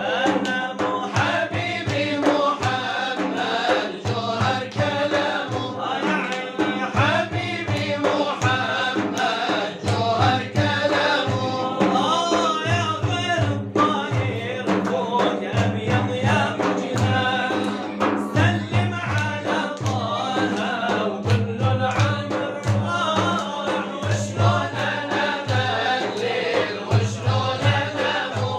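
Arabic devotional inshad: male voices chanting together over a steady, regular low drum beat.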